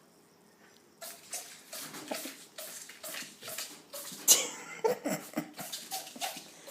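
Baby ferret sneezing over and over in a fit, short sharp sneezes about three a second starting a second in, the loudest just past the middle.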